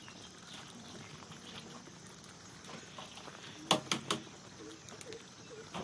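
Three quick, sharp knocks in a row a little past halfway, over a low steady background hiss.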